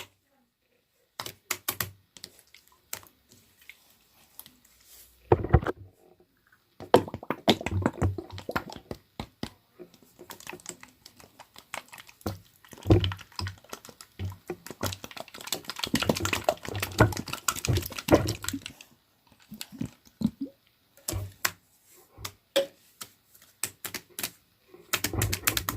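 Slime being squeezed and poked, making rapid, irregular clicking and popping in bursts, with a few low squishy thuds.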